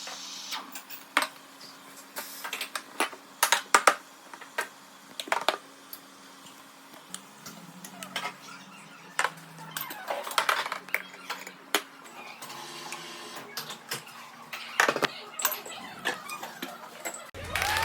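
Cups and metal barista tools clinking and tapping in irregular sharp clicks, over a faint low steady hum.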